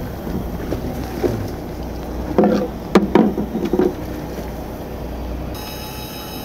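Steady low rumble of a fishing boat underway, with wind and water. A short cluster of sharp knocks and clatter comes about halfway through.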